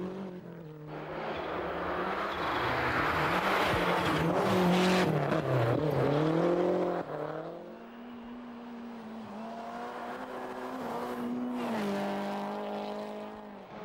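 Rally cars driven flat out on loose forest stages, engines revving hard with the pitch rising and falling through gearchanges and lifts. The first car passes close with a loud rush of tyre and stone noise. The sound changes abruptly about seven seconds in, and from there a second engine climbs steadily in pitch before dropping near the end.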